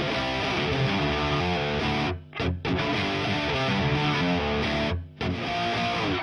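Distorted electric guitar riff from a 1980 Gibson Les Paul Custom with stock T-Top humbuckers, played through a Diezel VH4 head into a 4x12 cabinet with Celestion Vintage 30 speakers. The phrases stop short briefly twice, about two seconds in and about five seconds in.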